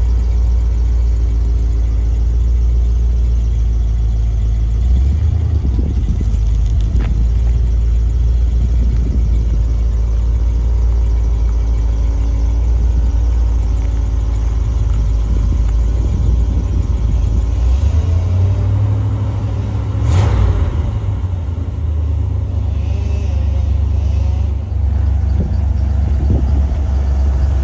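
1979 GMC K20 pickup's engine running as the truck is driven slowly and repositioned. There is a sharp thump about twenty seconds in.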